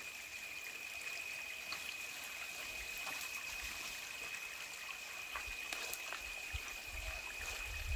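Faint running stream water, with a steady high thin tone over it and a few light clicks; some low rumble comes in near the end.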